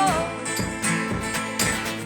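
Acoustic guitar strumming chords between sung lines, with the tail of a held sung note at the very start.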